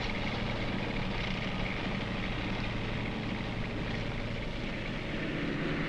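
Tank engine and tracks running steadily as the tank drives along a road, a low even rumble whose engine note shifts slightly near the end.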